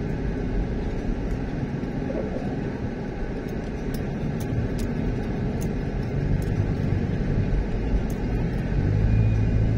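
Car driving slowly in town traffic: a steady low rumble of engine and road noise, with faint scattered ticks above it.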